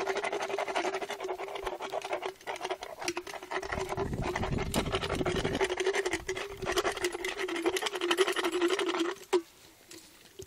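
Equine dental float rasping a horse's molars, stroke after stroke, with a steady hum under the rasping; both stop about nine seconds in.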